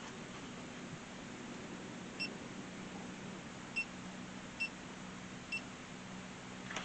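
Four short, high electronic beeps at uneven intervals over a faint steady low hum.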